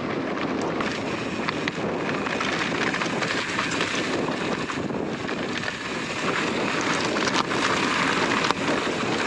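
2020 YT Izzo mountain bike rolling downhill on a dirt trail: steady noise of knobby tyres on the ground with small clicks and rattles from the bike. Wind in a 15–20 mph wind is buffeting the camera's microphone.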